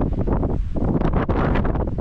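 Strong wind buffeting the microphone with a heavy, uneven rumble that swells and dips in gusts.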